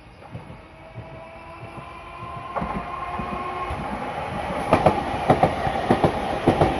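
Chikuho Electric Railway 2000-series articulated electric car approaching and passing close by, growing steadily louder. A steady whine runs under it, and in the second half its wheels clack sharply over the rail joints several times.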